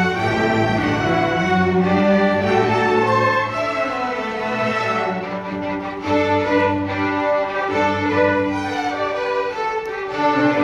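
String orchestra of violins and cellos playing live, with sustained bowed notes; the music drops softer around five seconds in and swells back up about a second later.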